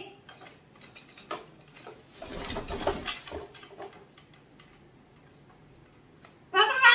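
Blue-and-yellow macaw moving on its wooden perch, with light clicks and a soft scraping rustle about two seconds in, then a loud call near the end.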